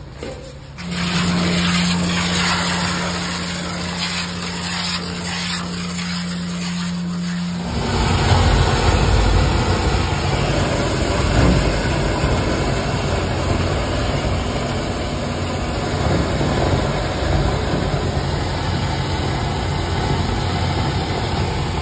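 Sludge vacuum truck sucking sewage water and sludge out of a pump-station pit through its corrugated suction hose, with the vacuum pump running as a steady hum. About a third of the way in the sound turns louder and rougher as the hose draws harder.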